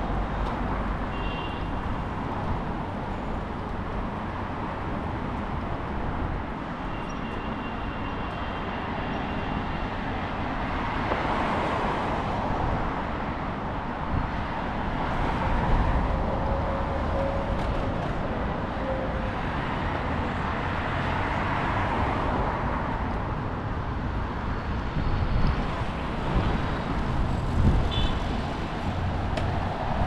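Road traffic on a multi-lane city road: a steady rush of tyres and engines that swells several times as vehicles pass close by.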